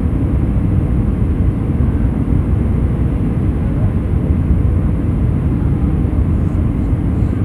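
Cabin noise of an airplane in flight, descending at about 235 mph: a steady low rumble of engine and airflow.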